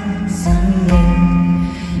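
A rock band playing live through a festival PA, heard from within the crowd: electric guitars, bass and drums holding sustained chords over a pulsing bass line, with a cymbal wash about half a second in.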